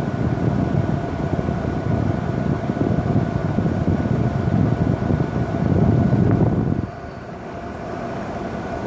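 1981 Emerson Quiet Kool 18,000 BTU window air conditioner running, its fan blowing a steady rush of cold air over a constant hum. About seven seconds in, the rushing air sound drops off sharply and the hum carries on.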